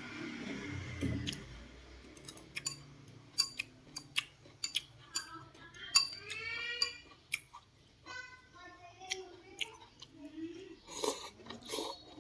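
A person chewing a mouthful of Khmer rice noodles with fish soup, with scattered short, sharp clicks of eating.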